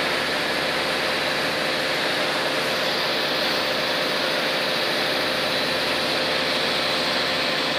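Factory machinery running steadily: an even whirring noise with one constant hum tone through it, unchanging throughout.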